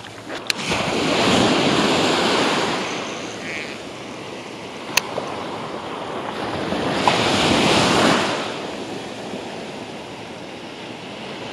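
Small Gulf surf breaking and washing up a sandy beach, swelling twice, about a second in and again around seven to eight seconds, with wind buffeting the microphone. Two brief sharp clicks come about half a second in and about five seconds in.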